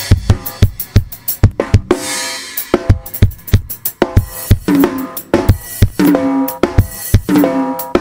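Acoustic drum kit played to a steady beat: bass drum and snare strikes, a cymbal crash about two seconds in, and ringing tom hits in the second half.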